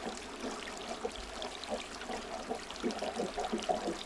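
Running water trickling and splashing steadily, with many small irregular drips and gurgles.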